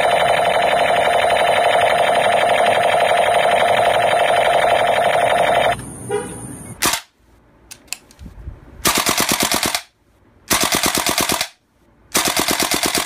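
Battery-powered toy AK-47's electronic machine-gun sound effect, a loud rapid buzzing rattle that cuts off abruptly about six seconds in. After a short lull come three short bursts of rapid automatic fire, about a second each, near the end.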